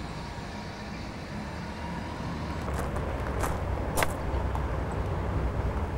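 Footsteps over dry grass and debris, with a few sharp crunches about three and four seconds in, over a steady low rumble that grows a little louder about two seconds in.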